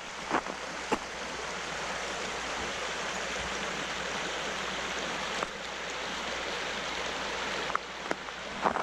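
Creek water running over rocks, a steady even rush, with a couple of short clicks near the start and near the end.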